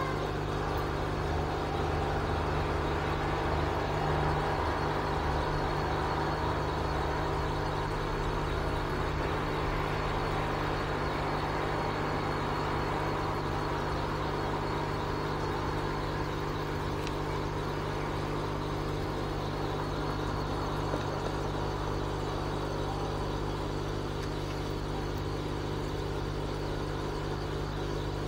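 Steady mechanical hum of running aquarium equipment: several low, even tones with a light hiss over them, unchanging throughout.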